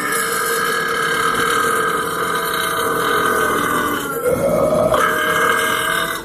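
A man's long, drawn-out burp, held steadily, shifting in pitch about four seconds in and cutting off near the end.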